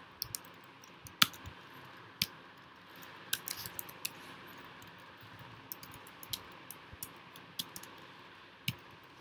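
Scattered keystrokes on a computer keyboard, typed unevenly with short pauses, one sharper click about a second in, over a steady hiss.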